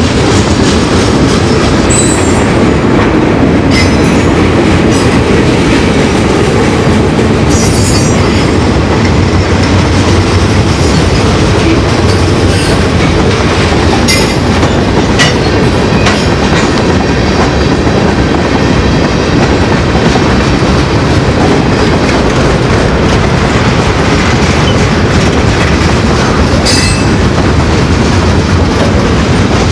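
Freight train of boxcars and a tank car rolling past: a loud, steady rumble of steel wheels with clickety-clack over the rail joints. Brief high wheel squeals break through several times.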